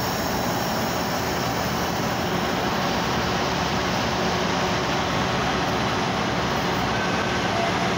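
Steady hum and hiss of a Metra bilevel commuter train standing at the platform with its doors open.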